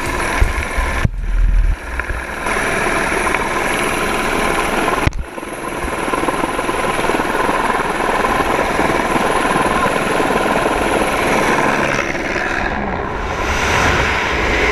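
Helicopter rotor and engine noise heard from inside the cabin with the door open, mixed with wind rushing past the microphone. The sound drops out abruptly twice, about a second in and about five seconds in.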